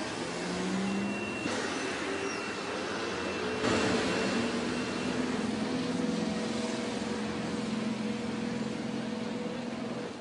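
City street ambience: steady traffic noise with the hum of passing vehicles, swelling briefly about a second and a half in and again near four seconds in.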